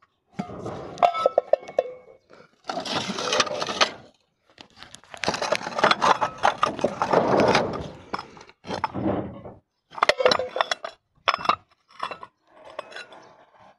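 Old crockery (small bowls and plates) clinking and knocking together as it is handled, with longer spells of scraping and rustling in debris as the dishes are dug out.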